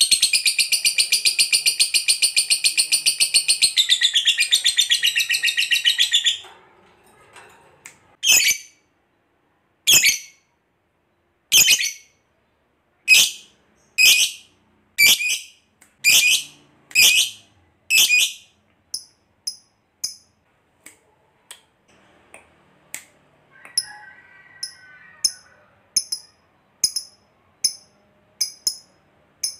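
Lovebird singing its long 'ngekek' trill, a very rapid, shrill chattering that runs unbroken for about six seconds and then stops. Single sharp shrieking calls follow about once a second, then shorter, fainter high chirps in quicker succession.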